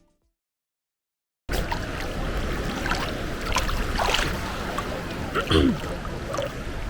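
Steady wind and surf noise at the beach, cutting in after a second and a half of silence, with a few faint clicks and a brief distant voice about five and a half seconds in.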